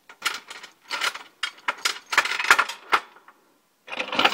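Steel logging chain and metal rigging rattling and clinking as they are handled and set down: a run of sharp metallic clinks, then another burst of clanking near the end.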